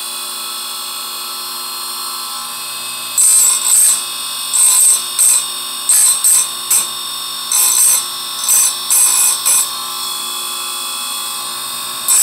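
Electric chainsaw-chain sharpener's motor running steadily, then, from about 3 seconds in to about 10 seconds in, a string of about ten brief grinding bursts as the abrasive wheel is touched down onto a chain cutter tooth to sharpen it.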